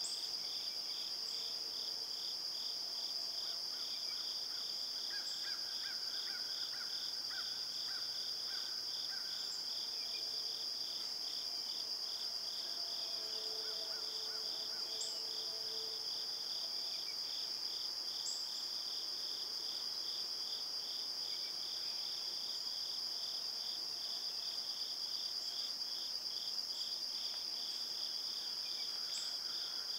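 Chorus of crickets and other insects: a steady high-pitched trill with a second, pulsing chirp beneath it about twice a second. A few faint, brief high chirps come and go over it.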